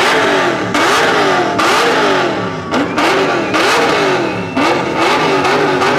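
Car engine revved hard at a standstill in a rev-off, the throttle blipped over and over so the pitch climbs and drops about once a second.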